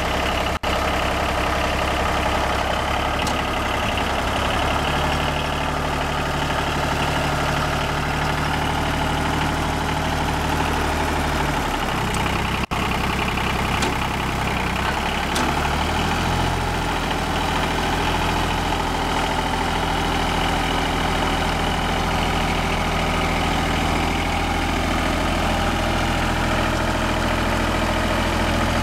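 John Deere 950 compact tractor's three-cylinder diesel engine running steadily as the tractor is driven, its engine note changing pitch about halfway through.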